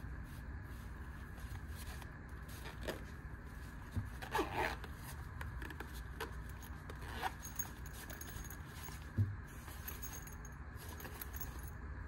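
Zipper on a fabric EDC pouch being worked, in short rasping pulls, with handling rustles and a couple of light knocks as the packed pouch is turned over.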